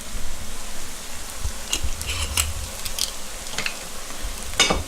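Plant-based ground beef substitute sizzling in oil in a frying pan, a steady frying hiss. A few light clicks come through it, and a sharper knock sounds near the end.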